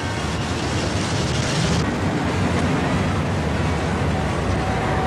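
City street traffic: a steady rumble of cars and engines, with a hissing layer on top that drops away about two seconds in.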